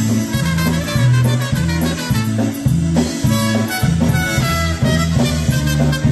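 Live polka band playing an up-tempo number, with the bass line pulsing about twice a second under the band.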